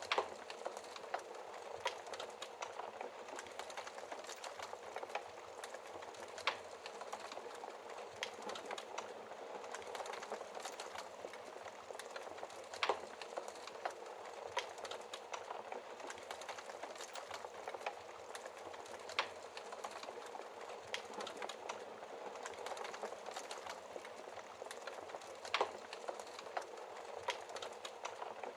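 Wood fire burning in a fireplace: a steady low hiss of flames with frequent small irregular crackles and a handful of louder pops.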